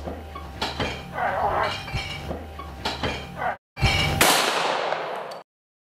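A scuffle between people, with shouts, grunts and repeated knocks and thuds. About four seconds in comes a loud sharp crash that rings and decays for about a second, then the sound cuts off.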